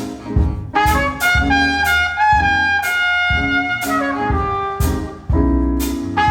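Recorded jazz played over a hi-fi system of Wilson Audio loudspeakers driven by Audio Research electronics: a trumpet carries the melody over deep bass notes and sharp drum hits about twice a second.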